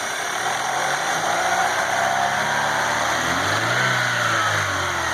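Chevrolet Aveo T250 petrol engine running, its revs rising and falling once about three and a half seconds in, with a gurgling ("журчание") noise. The owner traces this gurgling, and the whistling taken for noisy cam phasers, to air being sucked through a faulty crankcase ventilation (PCV) valve membrane.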